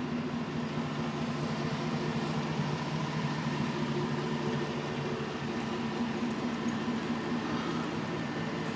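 Steady machine hum with several constant tones over a low rumble, unchanging throughout.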